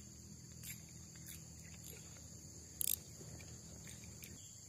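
Insects droning steadily at a high pitch in the surrounding vegetation, with a few faint clicks and a slightly sharper tick about three seconds in.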